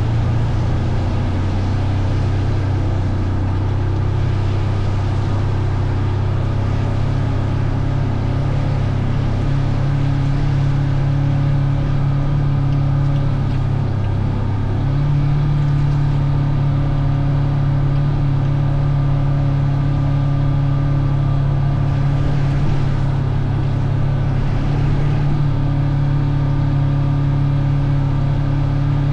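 A vehicle engine running steadily under way, its pitch stepping up about halfway through as the revs rise.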